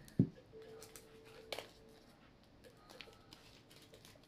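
A glass hot sauce bottle is set down on the table with a knock just after the start. Then come faint small ticks and rustles of fingers working at a small plastic packet, trying to tear it open.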